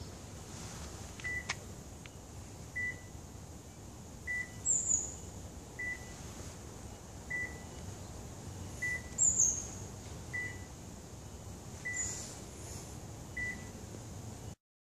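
A car's electronic beeper sounding a short, single-pitched beep about every second and a half. A few brief high chirps come over it.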